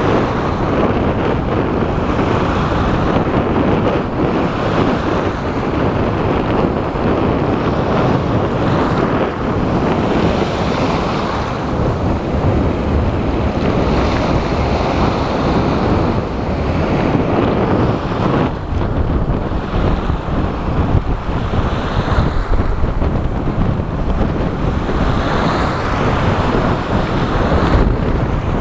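Strong wind buffeting the microphone over rough sea surf washing onto the shore, a steady loud rush with slow swells.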